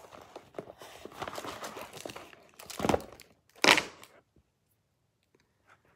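A hand rummaging in a fabric toiletry bag among small plastic bottles and tubes: rustling and crinkling, with two louder crinkles or knocks about three seconds in.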